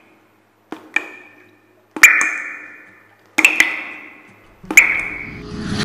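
Intro sound effects: four sharp struck hits, about a second and a half apart. Each is a quick double click that rings out with a high tone and fades over about a second. Near the end a rising swell leads into music.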